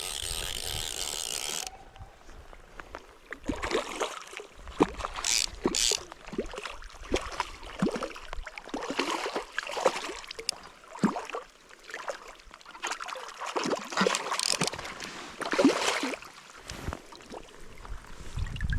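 River water splashing and gurgling in an uneven, surging rush, with a steady hiss in the first second or two.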